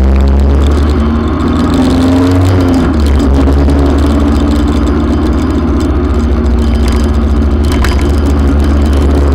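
Motorcycle engine running at low speed, heard from on the bike: a steady low drone whose note rises briefly about a second in, with a short click near the end.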